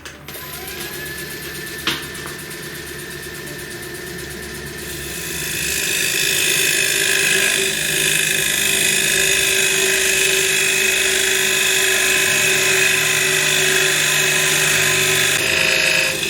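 Small bench wood lathe running with a steady motor whine. About five seconds in, a parting tool is pushed into the spinning wood and a loud cutting hiss rises and holds until near the end as a tenon is cut for the chuck.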